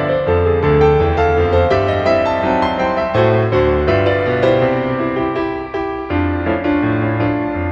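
Background instrumental music led by piano: a steady run of notes over a low bass line.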